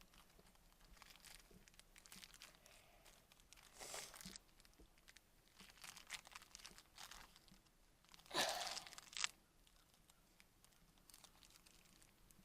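Faint crinkling and rustling of a foam-earplug wrapper being handled and torn open, with one louder tearing rustle about eight seconds in.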